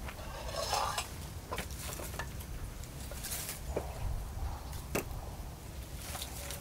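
Scattered light knocks and rustles of firewood being handled. A log is set down with a sharp knock on the ash of a metal fire pan about five seconds in, over a steady low rumble.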